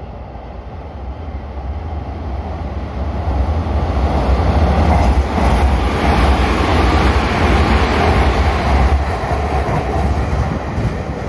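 Hanshin Railway electric train running past on the tracks, its wheels and motors rumbling. The sound builds as it comes alongside, is loudest in the middle, and fades near the end as it pulls away.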